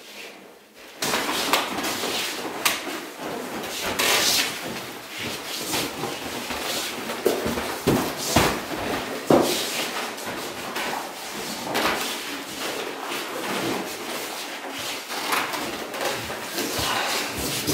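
Bare feet and bodies knocking, stepping and scuffing on a wooden floor: irregular thuds and sliding scrapes that start about a second in and keep on.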